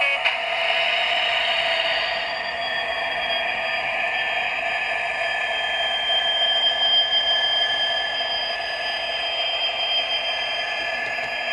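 Hornby Class 66 OO-gauge model locomotive running along the track, its TTS sound decoder playing the Class 66 diesel engine sound through the model's small speaker. A steady high whine comes in after about two seconds.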